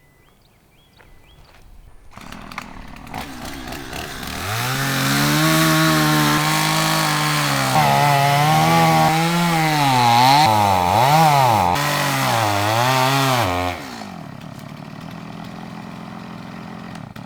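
Chainsaw cutting into a dead pine tree. It runs up to a loud, hard-working pitch that rises and dips again and again as the chain bites, then drops back to a quieter steady running near the end.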